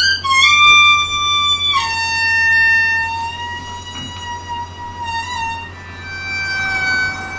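Ten-hole blues harmonica playing a slow line of long held notes. It slides into the first note, then steps down twice to lower notes, with a brief wobble on the middle note.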